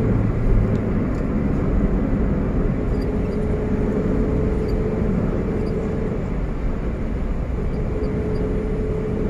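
Steady engine and tyre noise heard from inside the cabin of a moving car.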